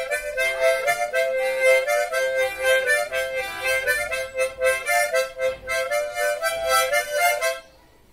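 48-hole tremolo harmonica playing a slow melody, note by note, with the wavering shimmer of its paired, slightly detuned reeds. The playing stops about seven and a half seconds in.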